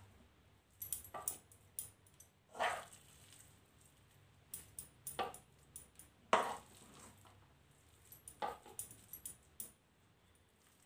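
A metal spoon clinking and scraping against a glass serving plate as soft halwa is pressed into shape, with a few louder short sounds spaced a second or more apart.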